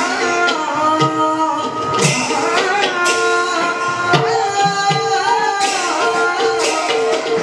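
Live Bhaona devotional music: a sung melody over hand-drum strokes and sharp cymbal-like clashes that come about once a second.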